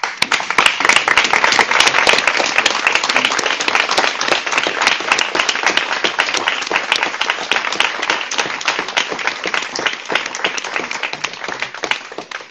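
Audience applauding, many hands clapping at once; the clapping starts abruptly and thins out near the end.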